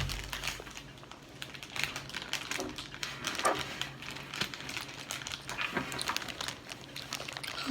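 Eating sounds: scattered small clicks and crackles of chewing and mouth noises, with some light crinkling.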